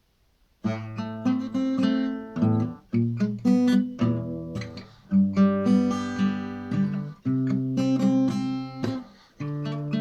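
Acoustic guitar strumming chords, starting about half a second in after near silence.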